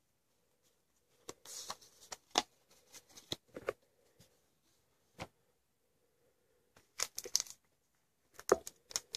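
Yu-Gi-Oh trading cards and a foil booster-pack wrapper being handled: short rustles, crinkles and light taps come in scattered clusters with quiet gaps between them.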